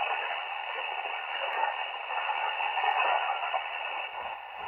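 Steady shortwave static hiss from the Malachite DSP SDR receiver's speaker, cut off sharply above about 3 kHz by its single-sideband filter, as it sits tuned to 10 MHz in LSB.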